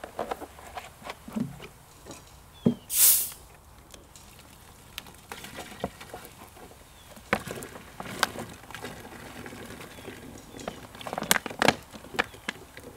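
Plastic Coke bottles handled in a water-filled aquarium: irregular knocks and splashy clicks, with one short, loud hiss about three seconds in.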